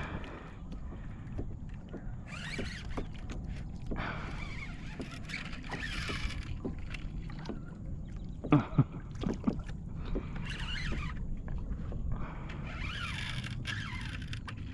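Water lapping against a plastic kayak hull, with wind on the water. Several higher, hissing stretches of a second or two come and go, and two sharp knocks land about eight and a half seconds in.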